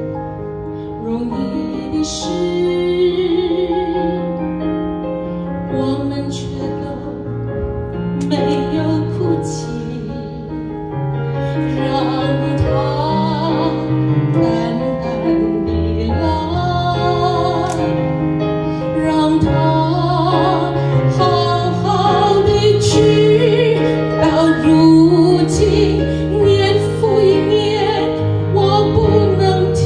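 A woman sings a Mandarin ballad into a handheld microphone, with vibrato on held notes, over keyboard accompaniment.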